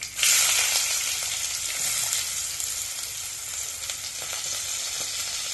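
Finely chopped onion going into hot oil and sizzling: a loud frying hiss that starts suddenly as the onion drops in, then eases off slowly.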